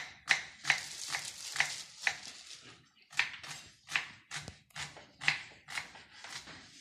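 Kitchen knives chopping on wooden cutting boards: rye bread and onion being cut into cubes, with sharp knocks about two to three a second and a short break about halfway through.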